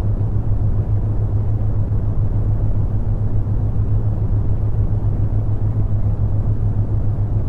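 Synthetic brown noise: a steady, deep rumbling hiss, with a constant low hum underneath from the theta-wave tone layered into the track.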